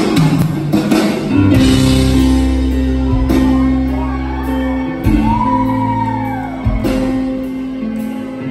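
Live band music in a large hall: slow, sustained keyboard chords over deep bass notes, changing every second or two, with a male voice singing a long note that rises and falls about midway.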